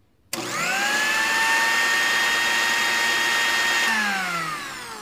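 Electric kitchen blender motor switched on, spinning up quickly to a steady high whine. It runs for about three and a half seconds, then is switched off and winds down with falling pitch.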